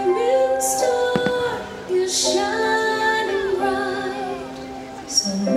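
Fireworks-show soundtrack: music with a woman singing long held notes, over which a couple of sharp firework bangs come just after a second in and a few short crackling hisses from the bursting shells.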